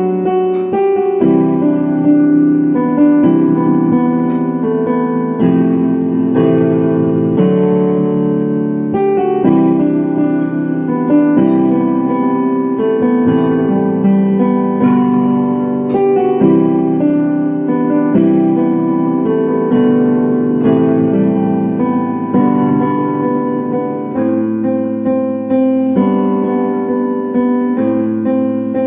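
A piano playing a self-composed waltz: chords and melody notes, one after another.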